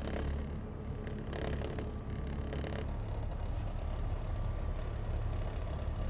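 Air-source heat pump outdoor unit running with a steady low hum. The higher tones drop away about three seconds in, leaving the low hum.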